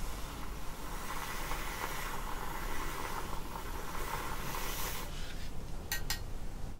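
Handheld battery milk frother whirring as its whisk froths instant coffee in a glass jug, stopping about five seconds in. A couple of light clicks follow near the end.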